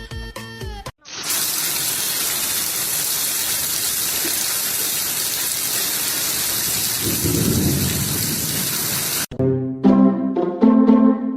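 A loud, steady rushing noise that starts and stops abruptly, with a low rumble swelling about seven seconds in. Brief background music plays at the start and again near the end.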